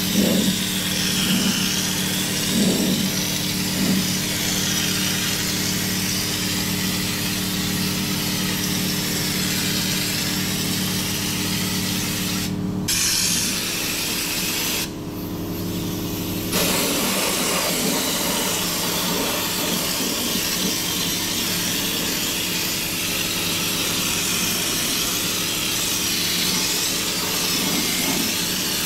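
Compressed-air underbody coating (Schutz) gun spraying with a steady hiss over the steady hum of an air compressor. The hiss cuts out twice near the middle, once briefly and once for about a second and a half, as the trigger is released.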